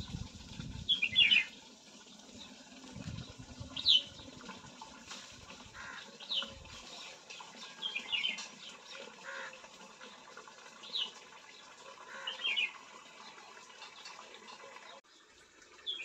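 Short, high bird chirps every second or two, some in quick runs of two or three notes, over a faint steady background. Low rumbles sound in the first few seconds.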